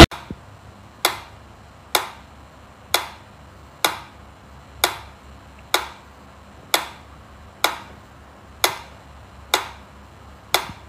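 Mechanical pendulum metronome ticking steadily, about one sharp tick a second.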